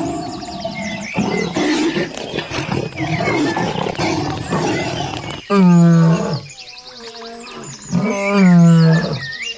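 A large animal gives two loud, deep calls about two and a half seconds apart, each lasting about a second, the second dropping in pitch at its end. Birds chirp in the background.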